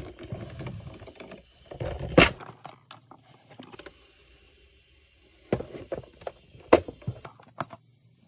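Handling noise from a plastic toy fridge: scattered clicks, rattles and low bumps, with two sharp knocks, one about two seconds in and one near the seven-second mark.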